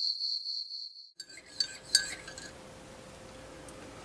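Crickets chirping in a high pulsing trill that cuts off about a second in. Then crockery and cutlery clink a few times at a breakfast table, the loudest clink about two seconds in, over quiet room tone.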